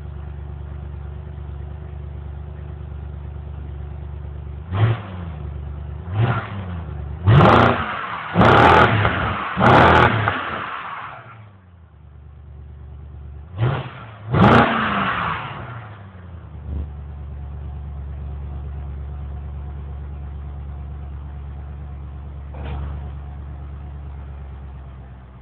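BMW X5 4.8i's 4.8-litre V8 idling steadily, then revved in a string of short throttle blips: seven quick rises and falls in pitch from about five to fifteen seconds in, the loudest near the middle. It settles back to an even idle, with one small blip near the end.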